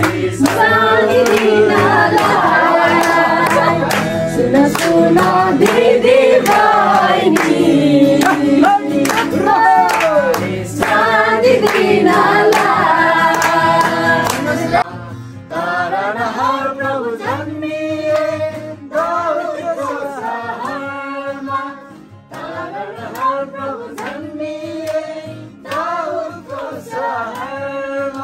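A group of men and women singing a Christmas carol together, with hand clapping along. About fifteen seconds in, the singing turns quieter and duller.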